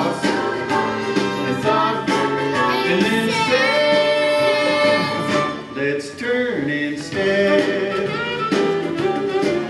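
A song: singing over instrumental accompaniment, with a held, wavering note around the middle and a sliding drop in pitch a little past halfway.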